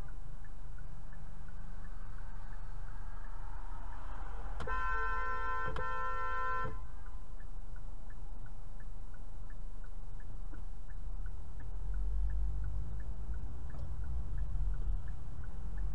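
Car horn honked twice about five seconds in, a longer blast then a shorter one, over the steady low hum of a car waiting in traffic. A turn signal ticks about two and a half times a second.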